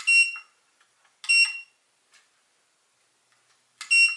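Hobby battery balance charger beeping as its buttons are pressed to set it to discharge: three short high beeps, each starting with a button click.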